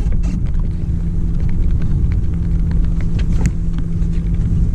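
Boat motor running steadily with a low rumble and a constant hum, with scattered light knocks and clicks over it.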